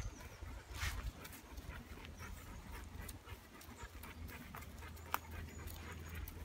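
A dog panting, with scattered short crunches of footsteps on a dirt path.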